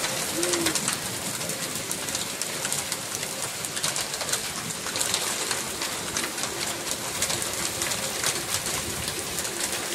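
Heavy hail and rain falling, a steady hiss thick with small sharp ticks of hailstones striking.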